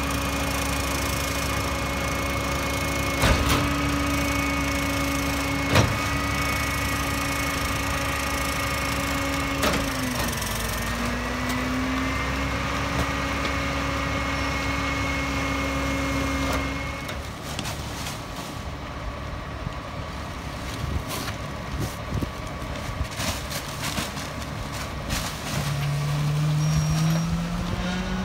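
Roy Strom EZ Pack Goliath rear-loader garbage truck's engine running steadily, with a brief dip in pitch about ten seconds in and a few sharp knocks as yard-waste bags go into the hopper. The sound then drops away and gets quieter, with scattered knocks. Near the end the engine revs up, its pitch climbing.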